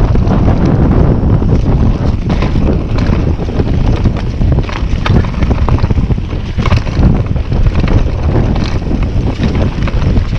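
Wind buffeting the microphone during a fast mountain-bike descent, over tyres rolling on a dirt trail. Many short knocks and rattles run through it as the bike goes over bumps.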